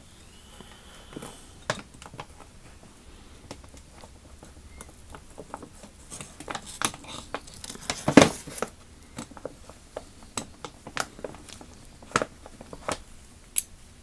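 Scattered small metal clicks and taps as the quick-release switch, spring and pawl parts of a vintage Craftsman 3/8-inch drive ratchet are worked back into place with needle-nose pliers, with crinkling from gloved hands; the clicks come thickest and loudest around the middle.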